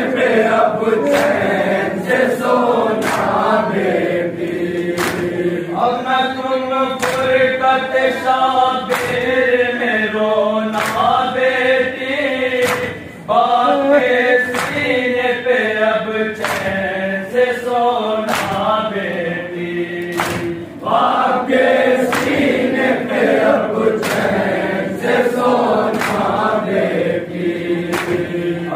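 Men's voices chanting an Urdu noha, a Muharram lament, in unison, over rhythmic matam: open hands striking bare chests, about once a second.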